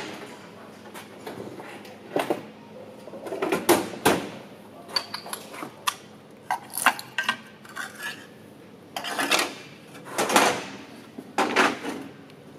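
Hand tools clinking and scraping against a Subaru EJ20 engine block as it is taken apart: irregular metal clicks and knocks, a few seconds apart, with quieter handling between them.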